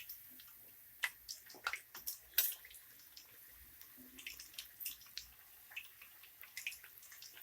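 Marinated chicken kabab pieces deep-frying in hot oil, with irregular crackles and pops over a faint sizzle. The popping comes from water in the chicken spattering in the oil, a sign the pieces are not yet fully fried.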